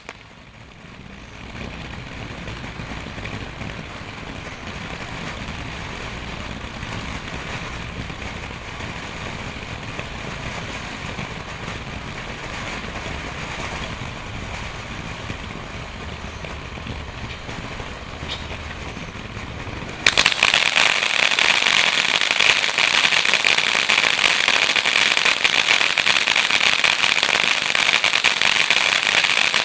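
Element X Y22 200-shot firework cake firing: a steady low background rumble, then about twenty seconds in a sudden, loud, dense crackling barrage of rapid shots that keeps going.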